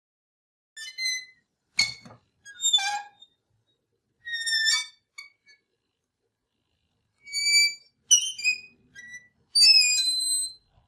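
Hanging sign swinging on its hinges, the hinges squeaking in a series of short, high-pitched creaks with silent gaps between them, some sliding in pitch.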